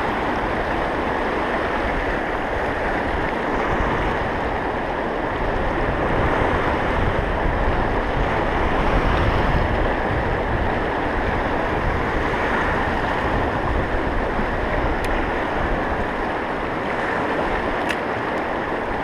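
Fast mountain river rushing over rocks through riffles and whitewater, a steady, even rush of water.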